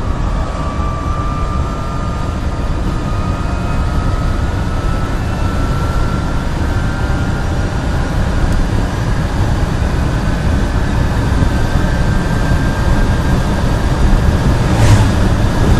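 Renault Twizy's electric drive motor whining while accelerating hard from about 55 to 80 km/h, the whine slowly rising in pitch over heavy road and wind noise that grows louder with speed. A short sharp knock near the end.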